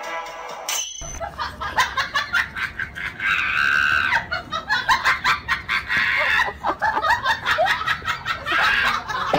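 Husky whining and crying in high, wavering calls, mixed with sharp clicks and rattles, as from a dog moving about in a wire crate.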